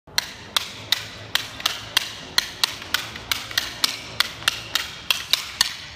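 Two pairs of eskrima sticks clacking together in a double-stick partner drill. About three sharp, ringing clacks a second, evenly spaced.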